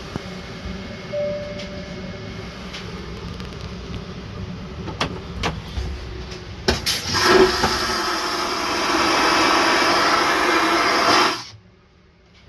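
Airbus airliner vacuum toilet flushing: a steady cabin hum with a few light clicks, then a click about two-thirds of the way in and a loud rushing suck that holds for about four seconds and cuts off suddenly.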